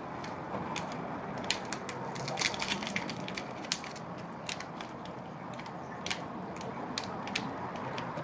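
Plastic wrapper of a trading card pack crinkling as hands peel it open: irregular sharp crackles, thickest in the first half.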